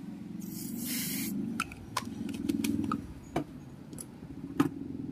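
Small handling noises at an amplifier circuit board: a brief hiss lasting about a second, then a few scattered light clicks and taps.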